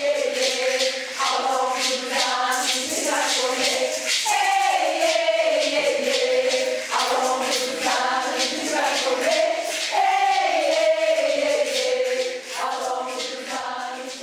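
Intro music: a group of voices singing a melody together over rhythmic percussion, fading out near the end.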